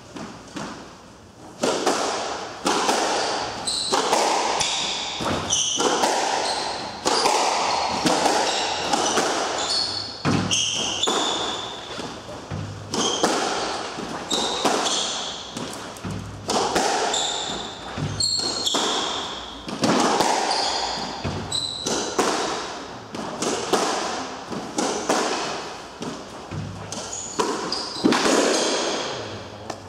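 Squash rally: the ball is struck by racquets and cracks off the court walls again and again, each hit echoing in the enclosed court, starting about a second and a half in. Shoes squeak on the wooden floor between shots.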